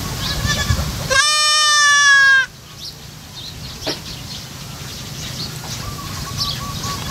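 A young goat kid bleating: one loud, long bleat about a second in, dropping slightly in pitch, with fainter bleats just before it and near the end.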